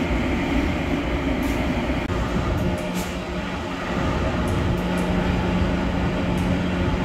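Steady engine and road drone of a semi truck under way, with a steady low hum and a few light ticks.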